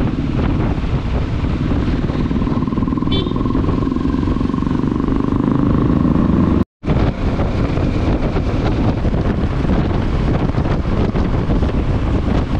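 Motorcycle riding at speed, heard over a loud rushing noise: the Kawasaki Versys 650's parallel-twin engine note rises gently for a few seconds as it pulls. The sound cuts out for an instant about seven seconds in, then goes on.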